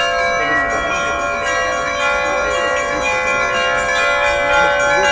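Trezvon on a portable belfry of Russian Orthodox church bells: many bells rung together, their tones overlapping and ringing on without a break.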